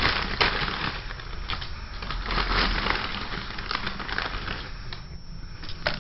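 Crunching, crumpling noise with many irregular crackles and one sharper snap near the end.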